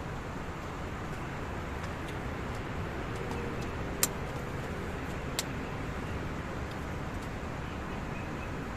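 Strong wind rushing steadily through a pine forest, with two sharp clicks about four and five and a half seconds in.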